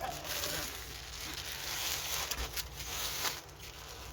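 Plastic packaging rustling and crinkling in irregular bursts as a shipping bag is handled and opened.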